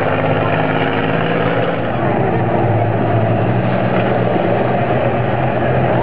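Several combine harvesters' diesel engines running at once, pushing and grinding against each other under load.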